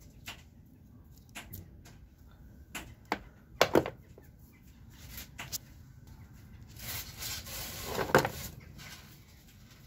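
Handling noises in a hard plastic tool case: scattered clicks and knocks as tools and batteries are moved, the loudest pair about three and a half seconds in, then a longer rustling scrape from about seven seconds that ends in a knock.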